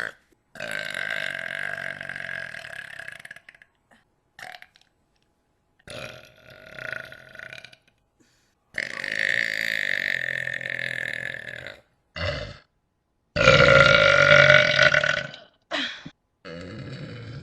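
A person belching repeatedly: a series of long, drawn-out burps with a few short ones between them. The loudest comes about fourteen seconds in.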